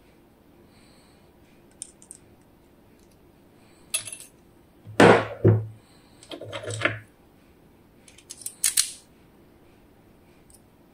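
Small metal lock parts and tools clicking and scraping as a lock cylinder is taken apart: a few light clicks, then four short bursts of clatter, the loudest about five seconds in.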